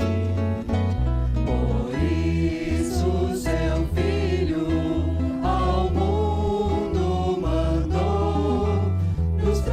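A Christian gospel song sung by a vocal group over band accompaniment with a steady bass line.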